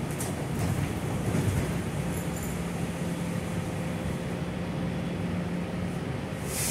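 Gillig low-floor city bus running, heard from inside the passenger cabin: a steady drone of drivetrain and road noise with a held low hum in the middle, light rattles in the first second or so, and a short burst of hiss near the end.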